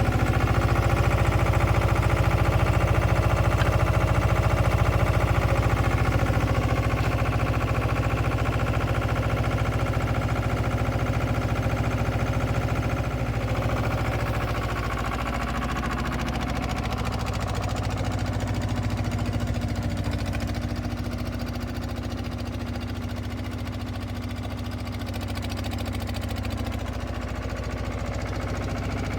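Bitelli BB 611 asphalt paver's diesel engine idling steadily, growing gradually quieter from about six seconds in.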